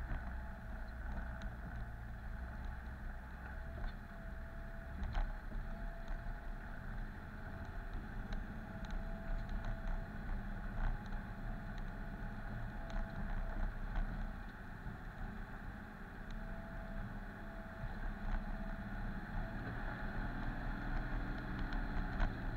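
A 4x4's engine running at low speed as it crawls down a rutted, muddy track, heard from inside the cabin. A few sharp knocks come from the vehicle jolting over the ruts, the clearest about five and eleven seconds in.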